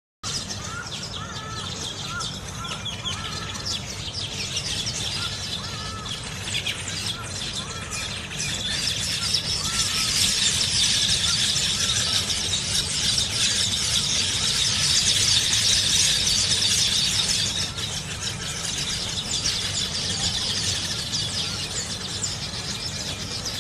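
A flock of weaver birds chattering and squealing together in a dense, high-pitched din, growing louder for several seconds in the middle.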